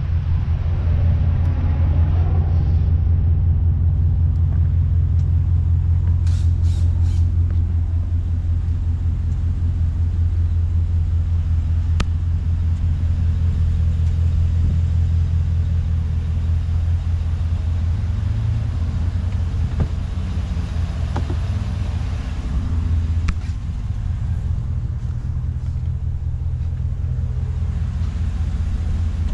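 2016 GMC Sierra 2500HD pickup's engine idling with a low, even drone, with a few faint clicks over it.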